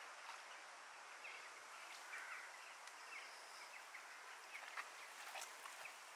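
Near-silent outdoor ambience with a few faint, short bird chirps.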